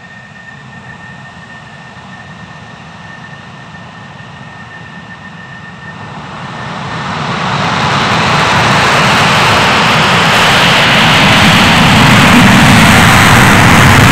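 Fighter jet engine running on the runway at low power with a thin steady whine. About six seconds in, the power comes up, and within a couple of seconds the noise is loud and full as the afterburner is lit for the takeoff roll.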